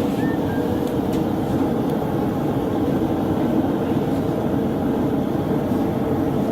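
A forge running with a steady, even rushing noise while a horseshoe knife blade heats in it to a black heat.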